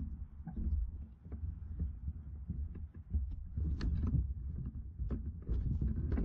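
Low, uneven rumbling buffeting on the microphone, with scattered small clicks and rustles.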